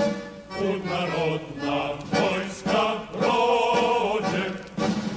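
A choir singing a song in drawn-out phrases, with short breaks between them.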